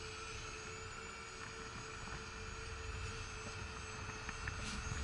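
Small ONAGOfly 1 Plus quadcopter drone in flight, its propellers making a faint, steady whine, with a few light clicks near the end.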